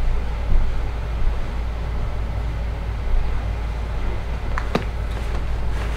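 Steady low mechanical hum, like a fan or air-conditioning unit, with a few plastic knocks from a handled laundry basket near the end and a rustle of clothes just after.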